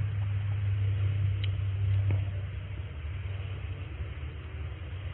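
Low rumble of wind and movement noise on a body-worn camera's microphone as the wearer walks along a dirt track. It eases off a little past two seconds in, with a couple of faint clicks.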